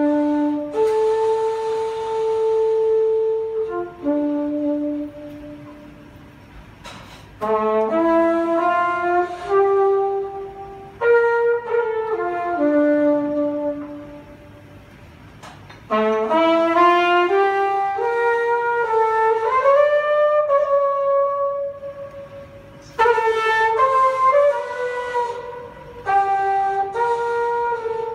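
Solo trumpet playing a slow melody in phrases of a few seconds, with short pauses between them; about two-thirds through, one held note slides upward.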